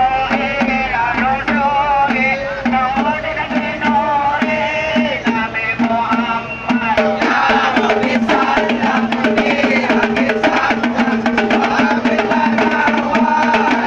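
Lively music with steady, evenly repeated drum strokes under a wavering melody line; about halfway through the melody gives way to a busier, denser sound.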